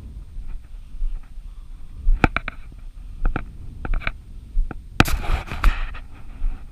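Footsteps through grass and knocks of handling noise on a body-worn camera, with a louder scraping rustle about five seconds in.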